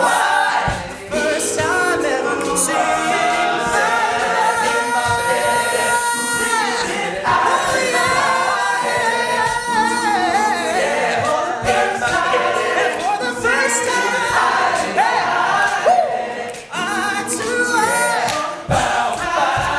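Male a cappella vocal group singing a pop song live, a lead voice over close-harmony backing vocals with no instruments.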